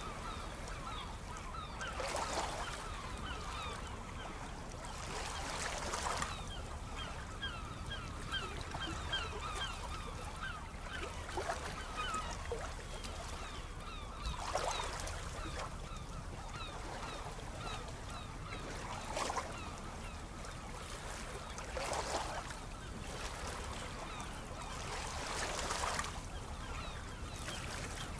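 Sea waves washing in and swelling every few seconds over a steady low rumble, with a large flock of birds calling constantly.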